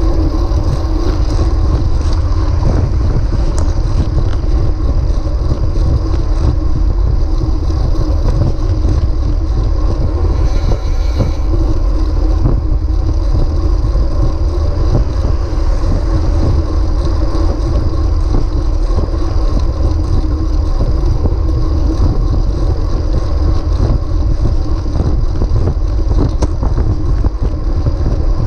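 Steady low rumble of wind rushing over a bike-mounted camera's microphone, mixed with tyre noise from road bikes riding at speed.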